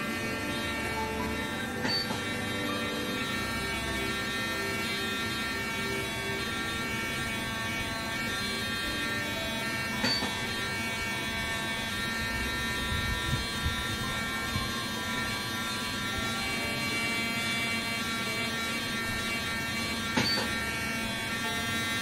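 Woodpecker 812 MT endo motor handpiece running with sonic vibration, a steady electric buzz like a shaver, as the file moves in watch-winding and counterclockwise rotation. A few brief ticks sound over it.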